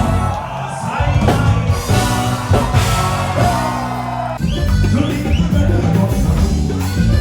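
Pop band music with drums, bass, guitar and singing, cutting abruptly to a different passage of music about four seconds in.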